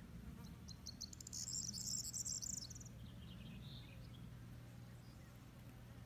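An insect stridulating in the meadow grass: a high, rapidly pulsed trill lasting about two seconds, starting just under a second in, over a faint steady low rumble.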